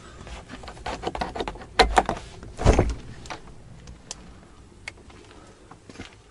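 Knocks, rustling and clatter as a wooden dugout door is pushed open and someone moves out through the entrance, with two heavier thumps about two and three seconds in.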